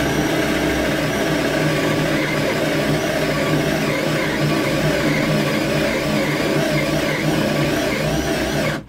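Einhell TE-CD 18/40 18 V cordless drill, brushed motor and two-speed gearbox, running steadily under load as it bores a hole into a thick block of wood. It cuts off just before the end.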